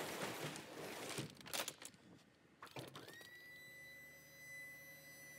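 Rustling and a couple of knocks, then a steady high-pitched electric motor whine for about three seconds that dips slightly in pitch as it stops.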